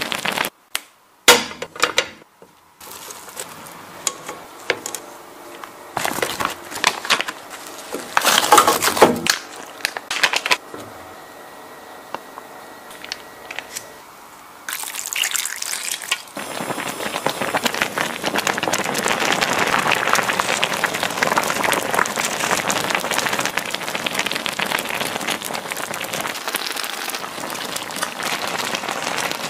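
Cooking sounds from a hot pot of Korean army stew (budae-jjigae): scattered clicks and handling noises of ingredients going into the pot, then, a little past halfway, the stew boiling with a steady, dense bubbling that runs on.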